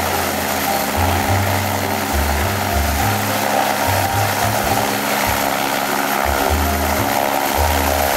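Helicopter running on the ground, its turbine and spinning main and tail rotors making a steady whine and whirr.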